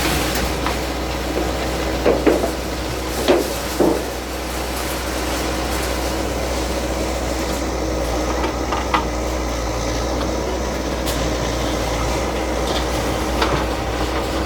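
Bulldozer engine running steadily, with several knocks and clatters of debris a few seconds in and again later, as huts are knocked down.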